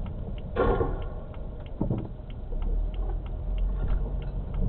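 Car turn-signal indicator ticking evenly, about two and a half ticks a second, over low engine and road rumble, with a short swish about half a second in.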